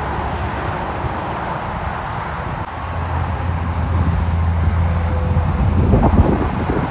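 Highway traffic with a passing semi truck's diesel engine, a low steady drone that grows louder from about three seconds in. Wind buffets the microphone near the end.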